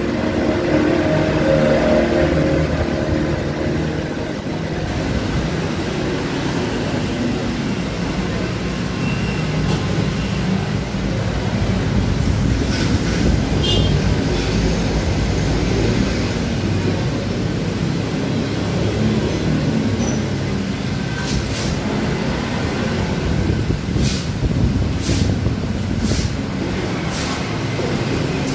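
Steady rumble of road traffic, with a few sharp clinks of cutlery on plates near the end.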